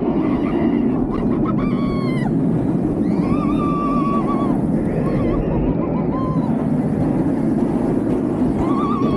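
Rush of wind and rumbling wheels on a Bolliger & Mabillard inverted steel roller coaster in motion. Several times, riders' high screams rise over the roar and are held for about a second each.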